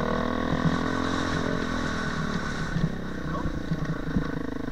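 Dirt bike engine running under way on a rough dirt trail, its pitch rising and falling with the throttle, with a couple of sharp knocks as the bike goes over bumps.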